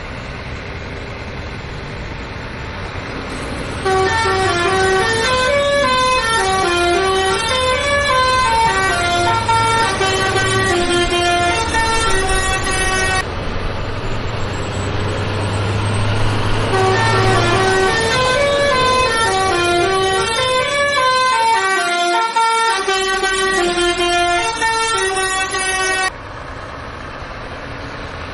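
A simple electronic tune of quick beeping notes that climb and fall in repeating runs, playing over a steady low motor hum. The tune starts about four seconds in and cuts off a couple of seconds before the end.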